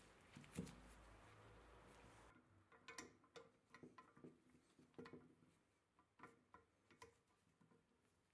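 Faint, irregular clicks and taps of small steel parts of an antique can-sealing machine being fitted by gloved hands: a key set into its slot in the arm and a nut or spacer seated over a seaming roller. A faint steady hiss stops about two seconds in.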